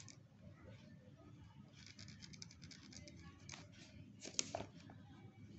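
Pen drawing short lines on paper: faint scratchy strokes, a quick run of them about two seconds in and a few stronger ones a little past the middle.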